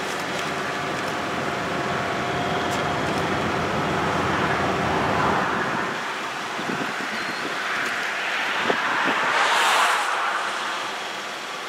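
Road traffic: a steady rush of tyre and engine noise that swells twice as vehicles pass, once about five seconds in and more strongly near ten seconds.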